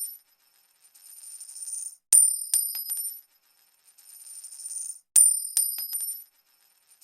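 Coin-drop sound effect repeating: a metal coin hits a hard surface with a bright ring and bounces a few times, quickly dying away. It happens twice, about three seconds apart, each drop led in by a hiss that swells for about a second.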